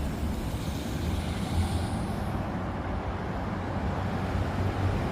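Steady rushing noise of riding a bicycle along a city street: wind buffets the microphone with a fluttering low rumble, and road traffic runs underneath.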